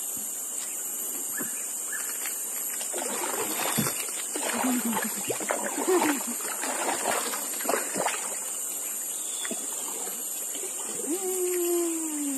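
Water splashing in a run of irregular splashes for about five seconds, over a steady high hiss. Near the end comes a short falling, voice-like sound.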